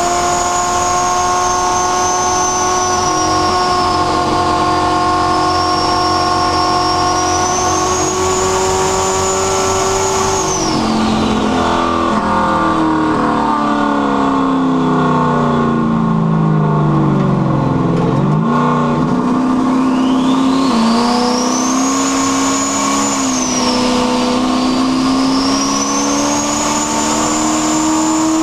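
Carbureted car engine with a rear-mount turbo, driving at steady revs with a high turbo whistle. About a third of the way in the revs fall away and the whistle dies down as the car slows. Past the middle the engine pulls again and the turbo whistle climbs back as it spools up.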